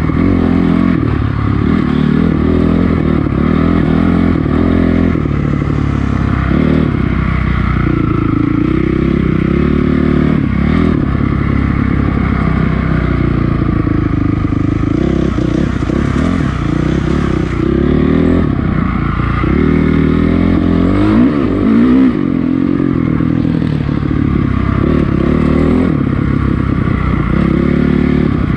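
2006 Honda CRF450R's single-cylinder four-stroke engine running under load on a trail ride, its revs rising and falling continually as the throttle is worked.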